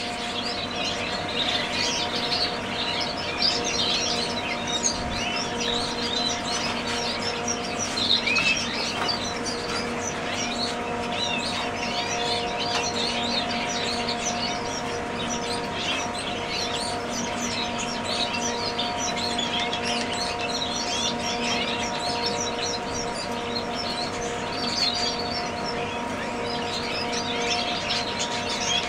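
Many canaries chirping at once, short high calls overlapping without pause, over a steady low hum.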